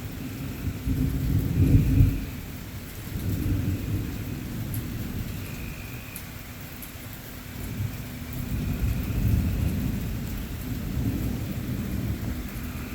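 Thunder rumbling over steady heavy rain. The rumble is loudest about two seconds in and swells again later on.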